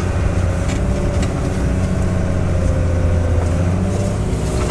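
Snowcat's diesel engine running steadily while the tracked machine drives on, heard from inside the cab.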